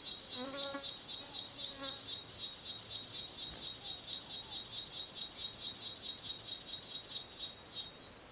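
Cicada song: a high buzz pulsing about five times a second, which settles into a faint steady whine near the end.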